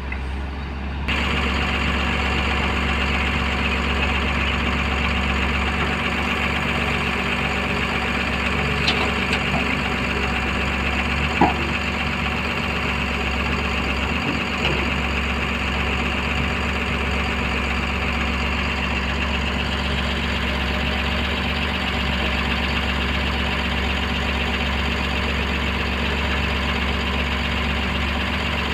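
A Komatsu PC210LC hydraulic excavator's diesel engine running steadily under working load as it digs and swings soil over a tipper. The sound gets louder about a second in, and there is a single short knock near the middle.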